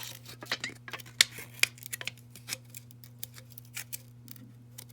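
Scattered small clicks and taps of hand tools and loosened glass on an iPhone X frame being worked, over a steady low electrical hum.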